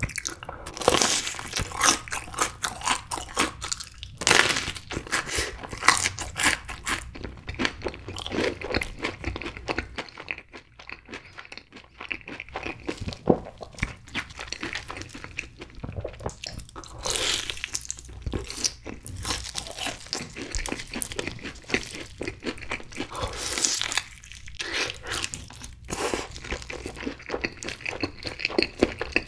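Close-miked eating sounds: a person chewing a Cheetos-crusted corn dog and sauced fried chicken, with irregular crisp crunches throughout.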